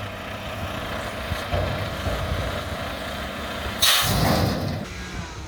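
Mack garbage truck's diesel engine running steadily, with a sudden loud hiss of air about four seconds in that fades over about a second, typical of an air brake release.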